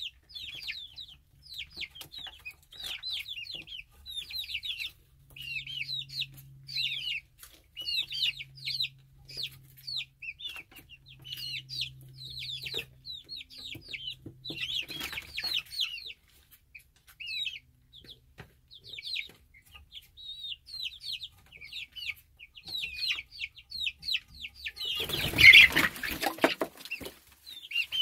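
Juvenile chickens peeping: a steady run of short, high-pitched chirps, several a second. About 25 seconds in comes a brief loud rustling burst.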